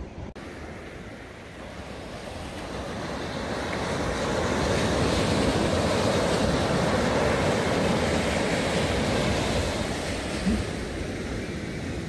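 Ocean surf breaking and washing up a sandy beach, building to a peak around the middle and then easing off as the wave runs out.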